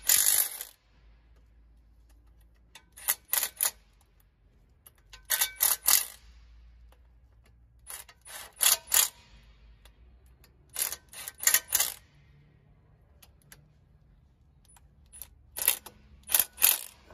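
Milwaukee cordless impact wrench driving the torque-converter bolts through the flexplate. It comes as five short clusters of quick trigger bursts a few seconds apart, running each bolt in snug before torquing.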